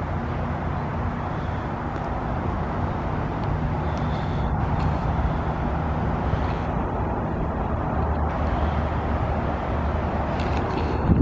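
RunTru heat pump outdoor unit running in defrost mode: the compressor hums steadily under a broad rushing noise. There is a brief thump near the end.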